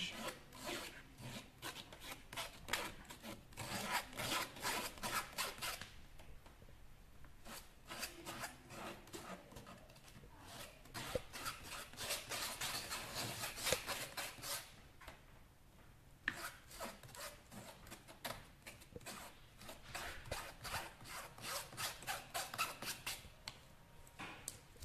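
A metal spoon scraping and rubbing soft porcelain clay through a wire-mesh sieve in runs of quick repeated strokes, with a few brief pauses. The scraping is the clay being forced through the mesh to sieve out lumps.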